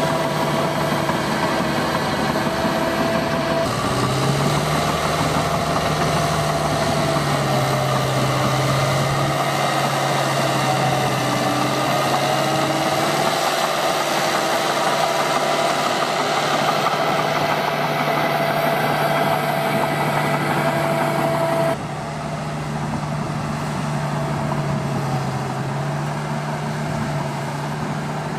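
Heavy diesel engines of John Deere earthmoving machines running, the engine note rising and falling as the load changes. The sound changes abruptly about four seconds in and again about three quarters of the way through.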